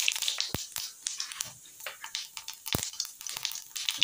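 Cumin seeds sizzling and spluttering in hot oil in a kadai: a hiss with irregular small crackles and pops, two of them sharper cracks, about half a second in and near three seconds.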